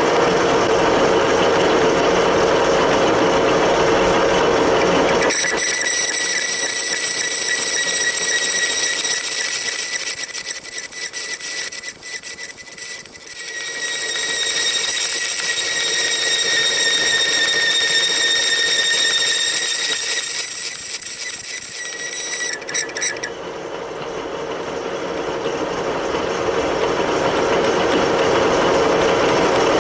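Metal lathe running while a cutting tool takes an inside dovetail cut in mild steel. From about five seconds in, the cut sets up a loud, high-pitched squeal, typical of tool chatter. The squeal breaks off briefly in the middle and stops a few seconds before the end, leaving the lathe's steady hum.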